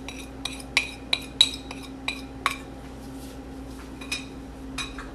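A metal utensil clinking and tapping against a small dish while seasoning is knocked and scraped out of it. There are about eight quick, sharp, ringing clinks in the first two and a half seconds, then two more near the end.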